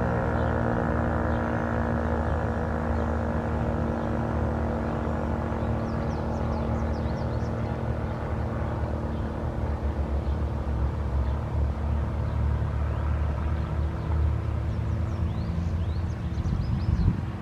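ASC T-128 electromechanical warning siren winding down at the end of its alert cycle. Its falling tone fades out over the first few seconds, leaving a steady low hum and rumble with a few high chirps.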